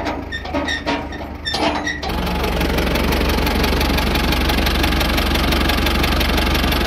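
Diesel engine of a Tata LPT 407 truck idling, loud and steady with a fast even chugging, coming in suddenly about two seconds in; before that, a few light clicks.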